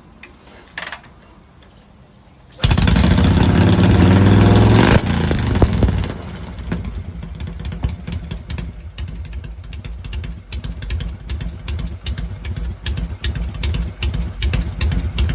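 Harley-Davidson Shovelhead V-twin engine firing up about two and a half seconds in and revving with a rising pitch for about two seconds. It then drops to a loping idle of distinct, uneven firing pulses. It runs on mechanical breaker points with a 5-ohm ignition coil.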